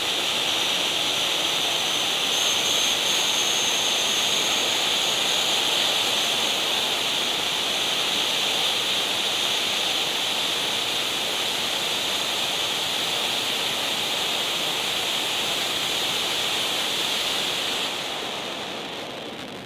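Celtic Fireworks Glacier Rising conic fountain firework burning: a steady rushing hiss of spraying sparks, with a faint high whine coming and going in the first few seconds. The hiss fades away near the end.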